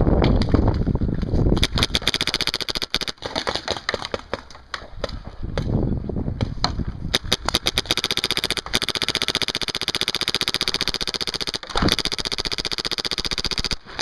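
Paintball marker firing in long rapid strings of pops, many shots a second, with brief pauses between strings. A loud low rumble fills the first two seconds.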